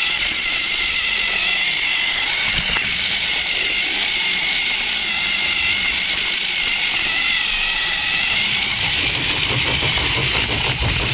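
Battery-powered Thomas the Tank Engine toy train running along plastic track, heard up close: its small electric motor gives a steady high whine, with the wheels rattling on the track. The rattle gets louder near the end.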